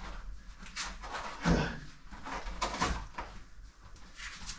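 Scattered scuffs, scrapes and knocks of a caver's clothing and boots against the rock as he squeezes up through a tight crevice, the loudest knock about one and a half seconds in and a few more near three seconds.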